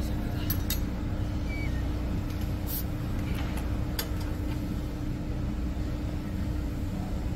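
A steady low rumble with a constant hum, like a running engine or machine, with a few sharp metallic clicks as a hand tool is worked in a broken bolt's hole.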